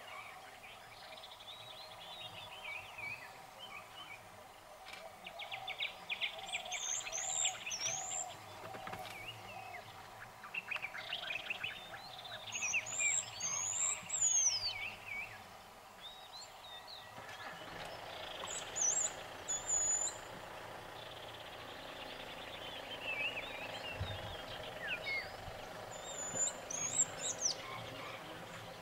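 Wild birds calling. A high whistled phrase sweeping up and down comes about four times, roughly six seconds apart, with bouts of rapid chattering calls between, over a steady faint background drone.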